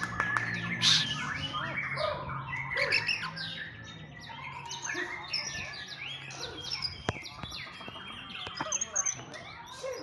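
Several caged white-rumped shamas (murai batu) singing over one another, a dense mix of whistled phrases and sharp chirps. A single sharp click comes about seven seconds in.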